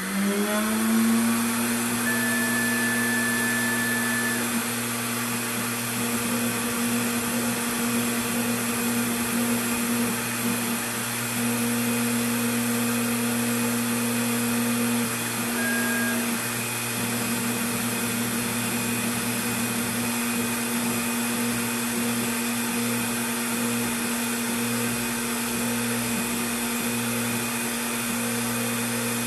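ProLIGHT 1000 CNC mill's spindle motor running at a steady speed with a steady whine, during a test G-code program. Brief higher-pitched whines come about two seconds in and again around sixteen seconds in as the stepper-driven axes move the table.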